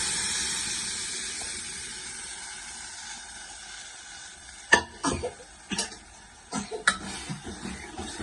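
Cooked dal and snake gourd poured into a hot pan of tempered oil and onions, sizzling loudly and then dying down over about four seconds. Then a spoon stirring the kootu, clicking and scraping against the pan several times.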